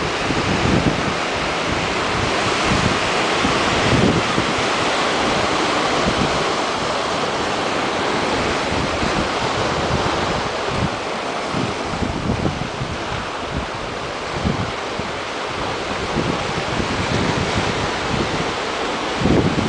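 Ocean surf washing in over a rocky, boulder-strewn shore: a steady rush of breaking waves. Wind buffets the microphone in irregular low gusts throughout.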